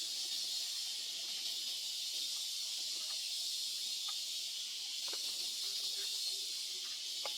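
A steady high-pitched hiss, with a few faint clicks and a brief low tone about six seconds in.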